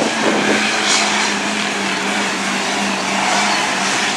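Mud truck engine held at high revs, with a steady drone, as the truck spins its tyres through a deep mud pit and sprays mud.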